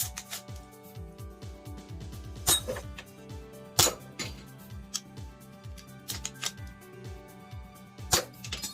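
Background electronic music with a steady kick-drum beat that quickens into a roll, cut through by three loud sharp clicks: about two and a half seconds in, again about a second later, and near the end.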